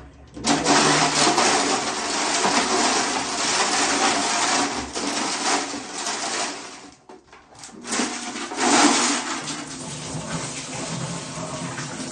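Running and splashing water as a small aquarium is rinsed out over a bathtub, with a hand swishing the gravel and glass marbles inside and the water poured out into the tub. It breaks off briefly about seven seconds in, then carries on.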